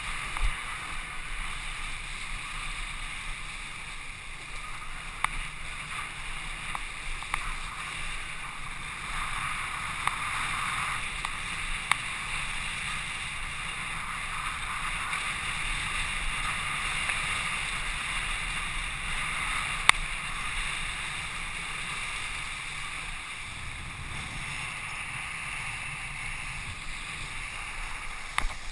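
Kiteboard planing fast across choppy water: a steady rush of water and wind, with a few sharp knocks from chop or spray hitting the camera.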